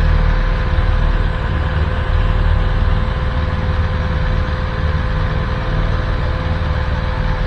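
Police motorcycles idling close by: a steady, loud low engine rumble with a constant hum above it.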